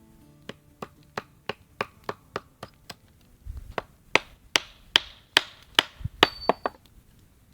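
Hammer driving a nail into wood: a run of sharp blows about three a second, growing louder about four seconds in, with a brief metallic ring near the end.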